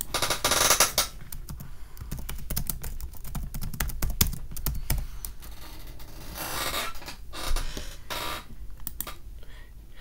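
Typing on a computer keyboard: a quick, uneven run of key clicks, as a search is entered. A louder burst of noise comes about half a second to a second in.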